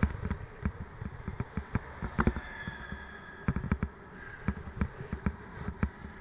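Irregular knocks and rattles from a mountain bike jolting over a rough road surface, over a steady faint hum.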